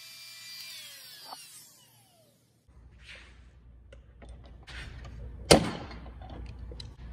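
Wood router switched off and spinning down, its whine falling in pitch over about a second and a half until it stops. Then comes light handling and clatter, with one sharp, loud knock about five and a half seconds in.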